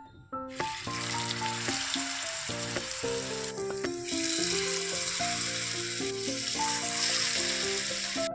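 Hot oil sizzling in a nonstick frying pan as raw mutton seekh kebabs are laid into it, starting about half a second in.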